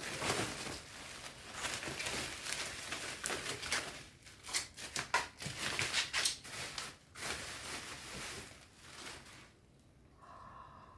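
Packaging being handled and unwrapped: rustling and crinkling with scattered crackles, which stops about nine and a half seconds in.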